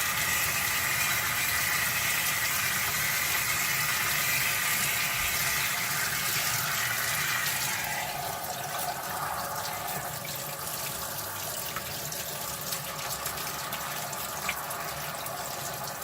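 Tap water running into a utility sink, rinsing a mesh bag of activated charcoal to wash out the dust. The flow is steady, then softens about eight seconds in.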